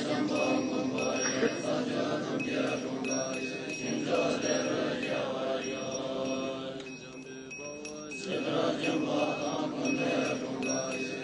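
Tibetan Buddhist chanting: a low, droning recitation of prayers. A thin, high ringing tone sounds on and off above it, and the chant thins briefly a little past the middle before picking up again.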